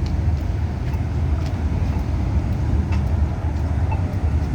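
Street traffic: a steady low engine rumble from passing or idling vehicles, with faint ticks over it.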